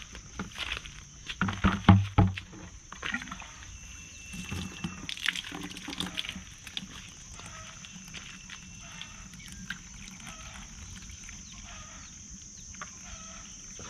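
Water running from a garden hose into a plastic bucket and sloshing, with a few loud knocks about two seconds in.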